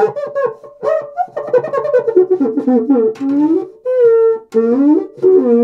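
Cuica friction drum (8-inch aluminium shell, mylar head) played by rubbing its inner stick with a damp cloth while a finger presses the head beside the stick. It gives a run of short squeaky, voice-like strokes whose pitch glides up and down and jumps to higher harmonics as the head pressure changes.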